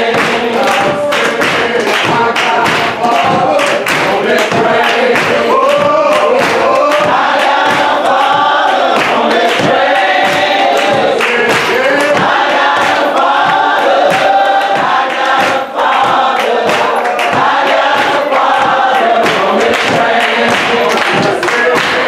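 Gospel song sung by a male lead singer with the congregation singing along, over steady rhythmic hand clapping on the beat.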